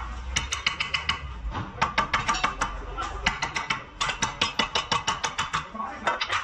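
A hand ratchet wrench clicking in quick runs of about eight clicks a second, with short pauses between the runs, as a lower control arm bolt is turned.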